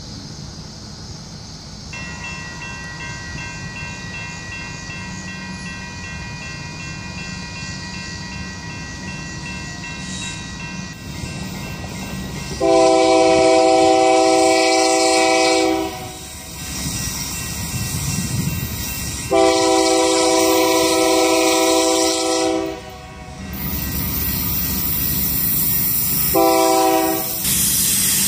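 Freight locomotive air horn sounding the grade-crossing signal as the train approaches: two long blasts of about three seconds each, then a short one near the end. All of it sits over the steady rumble of the oncoming train.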